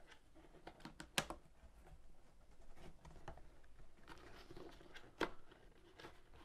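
Faint clicks and rubbing of parts being handled as a broadcast spreader's flow plate is pressed onto the bottom of its plastic hopper, with sharper clicks about a second in and again about five seconds in.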